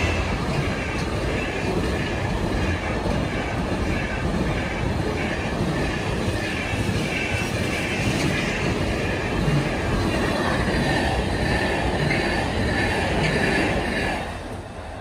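Container wagons of an intermodal freight train rolling past at speed: a steady rumble of wheels on rails with a high ringing above it, fading in the last second as the end of the train goes by.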